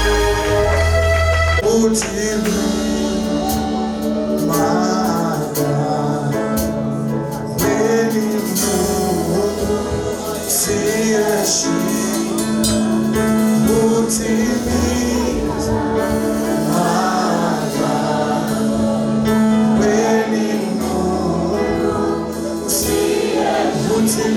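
A vocal group sings a gospel worship song, with several voices over instrumental accompaniment.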